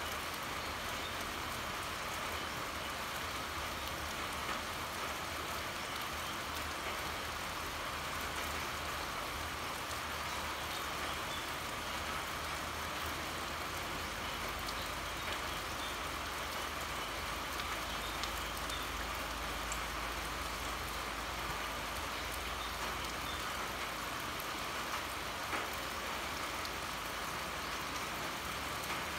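Steady heavy rain pouring, with scattered individual drops ticking on surfaces and a faint low rumble underneath.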